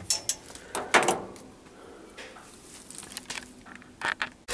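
A few sharp knocks and clicks from handling a refrigeration gauge manifold and its hoses, the loudest about a second in and a couple more near the end, with quiet between.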